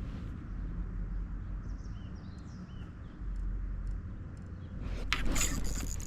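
A steady low rumble with a few faint bird chirps. About five seconds in, a loud rushing, crackling noise starts.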